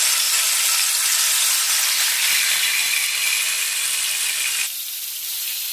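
Pieces of fish rubbed with turmeric, chilli powder and salt sizzling loudly in hot oil in a frying pan as they go in to fry. The sizzle drops off sharply about four and a half seconds in.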